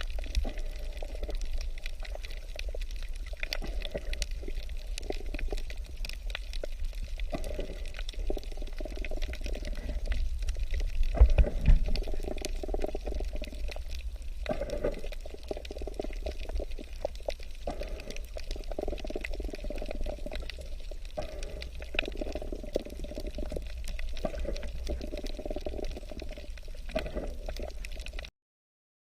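Water running or pouring continuously in an uneven, splashing wash with a low rumble underneath, which cuts off suddenly near the end.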